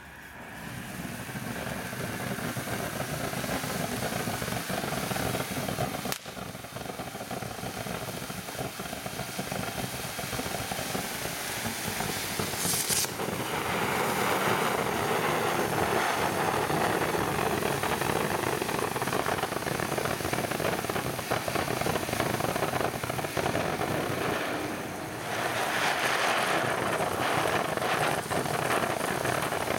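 Phantom Fireworks Flower Pot fountain spraying sparks with a steady hiss and crackle. It starts quieter, builds up over the first seconds and grows fuller about halfway, dips briefly near the end and then picks up again.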